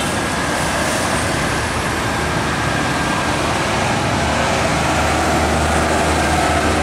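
Heavy truck diesel engines running slowly through a tight bend amid motorcycle traffic, a steady mix of engine and road noise. A low engine drone grows stronger about four seconds in.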